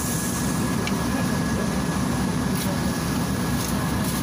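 Steady low running of a Volgabus 5270G2 city bus's Yuchai YC6L280N six-cylinder natural-gas engine idling while the bus stands, heard from inside the passenger cabin, with a thin steady high whine over it.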